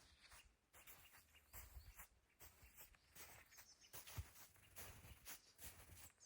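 Faint, irregular rustling and crunching, a few short strokes a second, like handling or stepping on snow-covered wood and brush.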